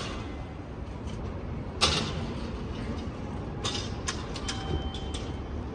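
City street ambience: a steady low rumble of traffic, with one sharp clack about two seconds in, a few fainter clicks later, and a brief faint beep near the end.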